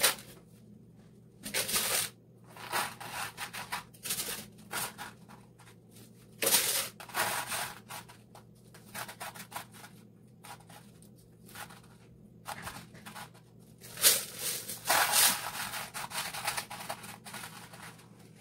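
Small stones being poured from a plastic jar and pushed around by hand on a painted canvas: irregular bursts of rattling, scraping and rubbing with quiet gaps between, busiest about three-quarters of the way through.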